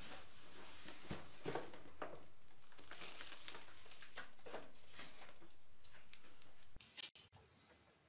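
A video doorbell camera's own microphone recording: a steady hiss with scattered rustles and knocks as a person moves and handles things right at the door. The hiss drops away about seven seconds in.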